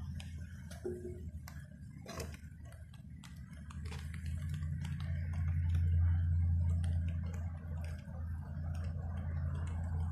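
Wind buffeting the microphone in a low rumble that swells about halfway through, with light irregular ticks of footsteps while walking.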